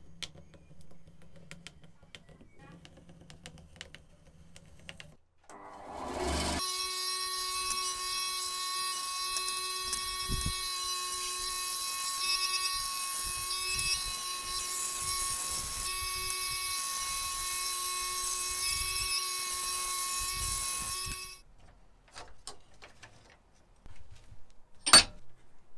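Band saw starting up and cutting a block of wood: a steady machine whine with hiss that runs for about fifteen seconds and then cuts off sharply. Before it, faint light scratching and ticks from pencil marking on wood; near the end a single sharp knock, the loudest sound.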